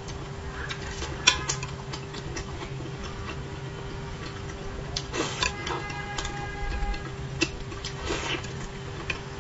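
Eating sounds: chopsticks clicking against the dish and bowl, and soft chewing, as a series of scattered small clicks and taps over a faint steady hum.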